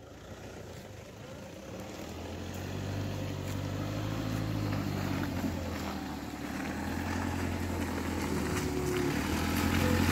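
Toyota Hilux pickup's engine running as the truck drives up through mud, its sound growing steadily louder as it draws near.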